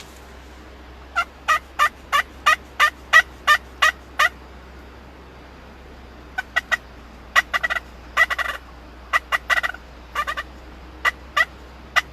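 Turkey yelping: a steady run of about ten short, sharp notes at roughly three a second, then after a pause a more ragged series of similar notes.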